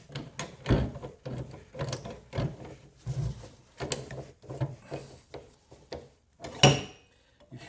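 Repeated short mechanical clicks and knocks from dent-pulling tools working a dented car door panel, with one louder knock near the end.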